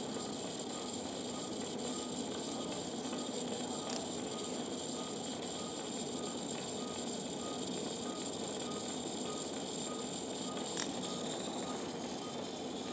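Anaesthesia monitor beeping with the dog's heartbeat: a short high beep repeating evenly about three times a second, over a steady hiss of operating-room equipment. Two brief sharp clicks, about four seconds in and near the end.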